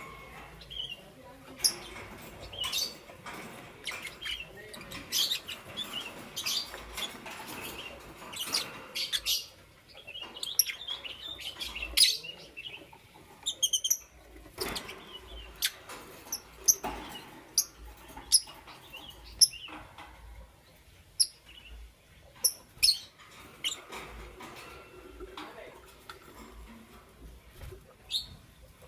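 Lovebirds chirping: short, sharp, high chirps at irregular intervals, mixed with clicks, with a quick run of repeated high notes about halfway through.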